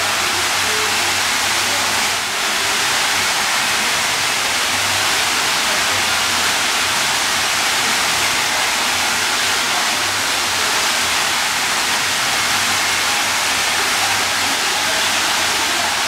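Steady rush of water from a swimming pool's overhead cascade spout pouring into the pool.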